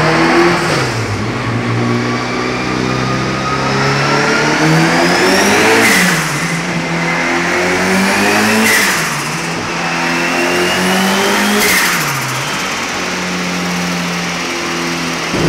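Turbocharged rallycross Ford Fiesta Supercar engine under load on a chassis dyno. It revs up three times in a row, each climb ending in a sharp bang and a sudden drop in revs like an upshift, then runs at steady revs near the end.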